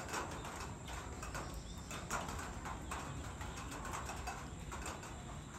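Outdoor ambience: rapid, irregular clicking and chirping, several clicks a second, over a steady low rumble.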